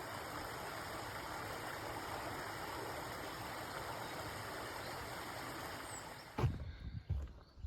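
A woodland stream running steadily. About six seconds in the water sound cuts off abruptly and a few low thumps follow.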